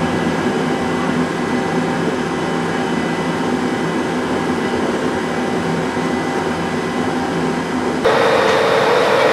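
Steady mechanical drone of a railway station train hall, a few steady tones over a noisy hum. About eight seconds in it cuts abruptly to a louder, brighter steady hum from a standing ÖBB Railjet electric locomotive, the sound of its cooling fans running.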